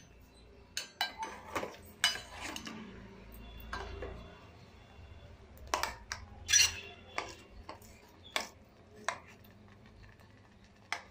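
Steel spoon clinking and scraping against a stainless steel pot while stirring rice-flour batter into hot milk, in irregular knocks with the loudest a little past the middle.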